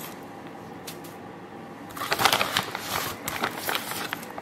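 Scoops of protein powder tipped onto dry puffed rice cereal in a stainless steel bowl: soft rustling and crackling of the cereal, loudest for a second or two past the middle.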